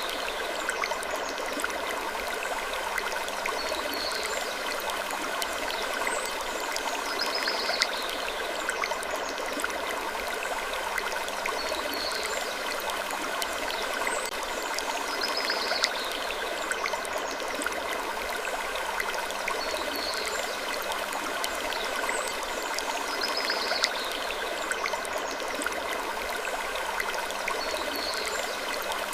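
Slow wood creaking recurring every few seconds over a steady rushing hiss, in a looped sleep-ambience track that repeats about every eight seconds.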